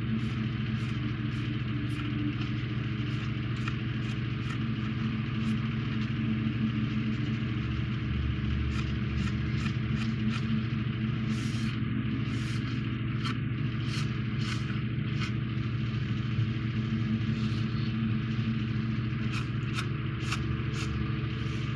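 Damp cloth rubbed back and forth over a plastic model kit's hull, wiping away wet modelling putty in short, irregular scratchy strokes, over a steady low hum.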